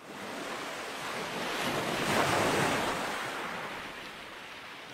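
Ocean surf breaking and washing up a sandy beach: a rushing wash that swells to its loudest about two seconds in, then slowly recedes.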